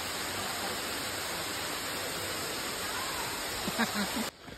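Steady rushing of a waterfall pouring down stepped rock, cutting off suddenly near the end.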